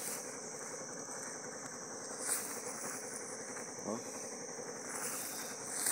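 Night chorus of crickets: a steady, continuous high-pitched trill, with a brief rustle about two seconds in and a short vocal sound near the end.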